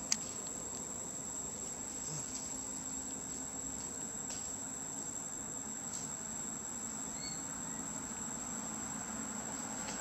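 Insects droning steadily at a high pitch, with a few faint clicks.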